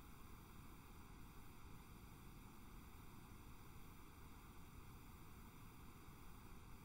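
Near silence: a steady faint hiss of the recording's noise floor, with nothing else.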